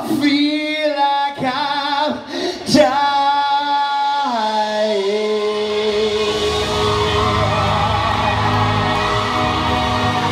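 Live rock band: a male lead singer holds long sustained notes over sparse backing, sliding down in pitch about four seconds in. Then the full band of electric guitar, bass and drums comes in and plays on at full volume, heard through a large hall's PA.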